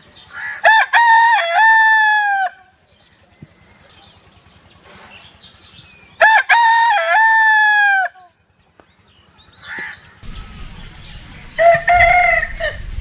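Roosters crowing: two loud crows about a second and six seconds in, each a few short broken notes running into a long held note that drops at the end, then a third crow near the end over a low rumble. Faint short calls and clucks fill the gaps.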